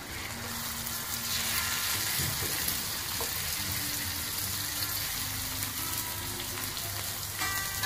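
Sliced onions, chopped tomatoes and green chillies sizzling steadily in oil in a non-stick kadai while a spoon stirs them.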